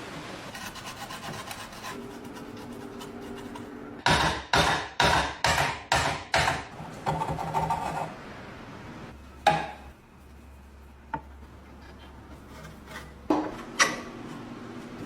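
Hand scraping or filing on the rusty lock: a run of about eight back-and-forth strokes, roughly two a second, followed by a few separate knocks.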